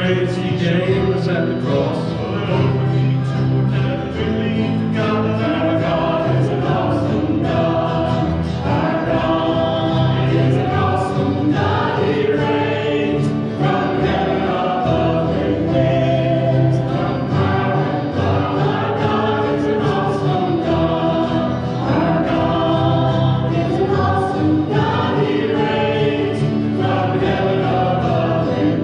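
A group of voices singing a gospel hymn together over sustained low accompanying notes.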